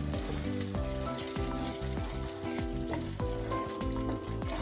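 Thick coconut-milk curry gravy sizzling in a kadai on a gas flame while a wooden spatula stirs through it, the masala being cooked down (koshano).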